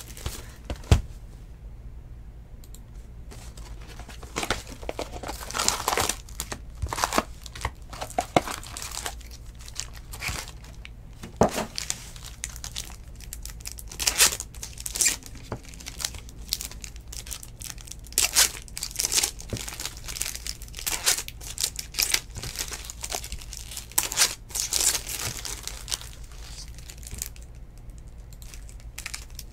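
Foil wrappers of 2019 Bowman baseball hobby packs being torn open and crinkled by hand, in irregular crackly bursts.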